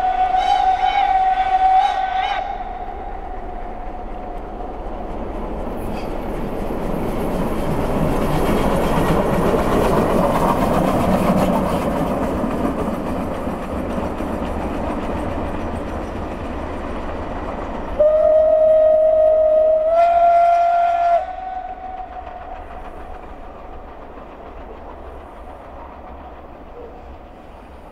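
SBB C 5/6 four-cylinder compound steam locomotive sounding its whistle for about two seconds, then running past with a swelling and fading rush of steam and wheels. About eighteen seconds in it whistles again for about three seconds, the pitch stepping up near the end, and the sound then fades as it goes away.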